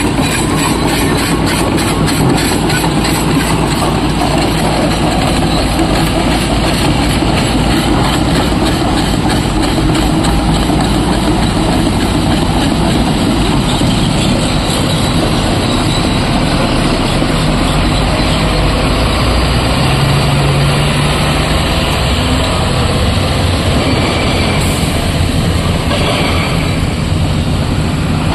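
Heavy diesel machinery running: a SANY SY225 crawler excavator's engine and hydraulics working alongside tipper dump truck engines, a loud steady rumble that does not let up.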